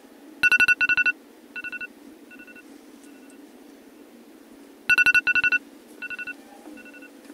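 Electronic alarm beeping in two bursts of rapid, high two-tone beeps about four and a half seconds apart, each burst trailing off in fainter echoing repeats, the sign of a wake-up alarm going off.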